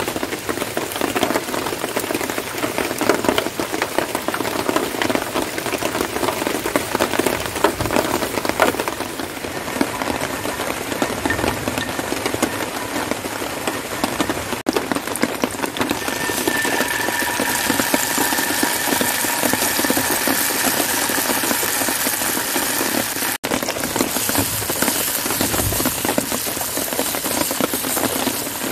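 Rain pattering steadily in the first part. In the second half, a camping stove burner runs with a steady hiss under a faint high tone, while oil and beef sizzle in a cast-iron skillet as a wooden spatula stirs them.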